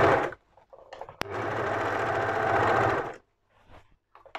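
Overlocker (serger) stitching and trimming the raw edge of a seam allowance. It runs briefly at the start and stops, starts again with a click about a second in and runs for about two seconds, then stops, with faint fabric handling after.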